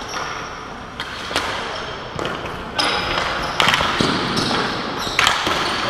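Ball hockey play on a concrete floor: several sharp clacks of sticks and the ball, echoing in a large hall, over a steady wash of noise from the play.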